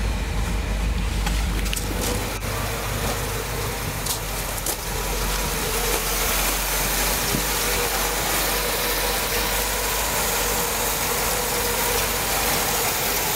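1967 Cadillac Eldorado's 429 cubic-inch V8 running steadily at idle just after being started, its first run after sitting a long time.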